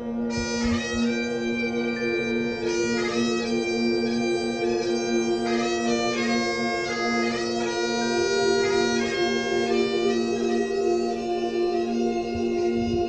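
Background music: a melody over steady, unbroken drone notes.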